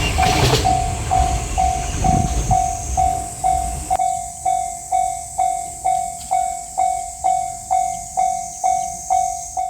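Japanese level-crossing warning bell ringing its repeated kan-kan tone, a little over twice a second. For the first four seconds the rumble of a passing JR Freight train runs under it, then stops suddenly as the train clears the crossing, leaving the bell alone.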